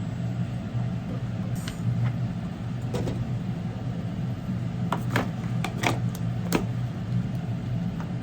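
A steady low mechanical hum with several short, sharp clicks and clinks over it, most of them bunched together after about five seconds.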